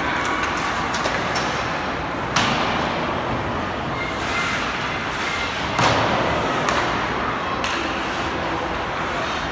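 Ice hockey play in an echoing indoor rink: steady scraping of skates on the ice, with sharp knocks of sticks, puck and boards, the loudest about two and a half and six seconds in.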